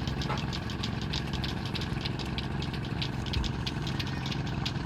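Small boat's engine running steadily: a low hum with a rapid, regular clatter about three to four times a second.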